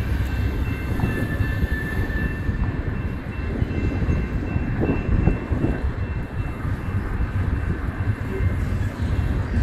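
Double-stack intermodal well cars of a freight train rolling past: a steady rumble of steel wheels on rail, with a thin high whine running through it.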